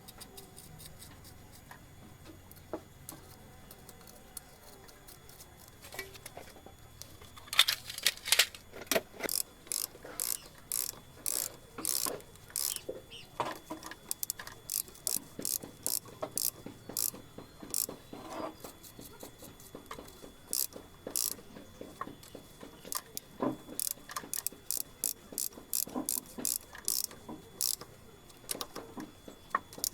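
Hand tools on an engine, most likely a ratchet wrench, clicking in a long run of short strokes at about two a second, starting about seven seconds in.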